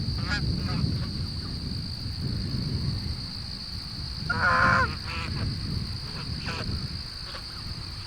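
Geese honking: several faint honks and one louder, half-second honk about four seconds in. A steady high insect drone and a low wind rumble run underneath.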